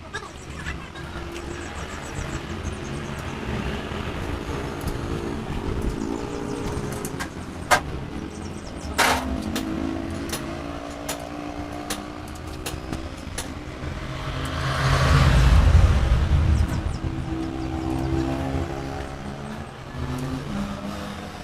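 Motor vehicle engines running, with pitch rising and falling; one grows loud about fifteen seconds in and then fades. A few sharp clicks are heard around eight to nine seconds in.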